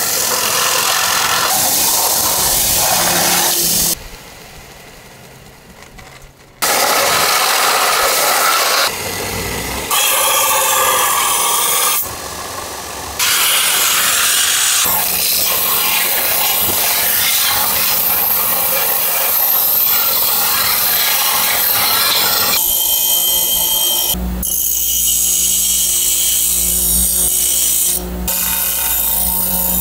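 Forged steel knife blade being ground on an electric belt grinder: the abrasive belt makes a loud rasping hiss against the steel. It breaks off for a couple of seconds about four seconds in, with a few shorter dips later.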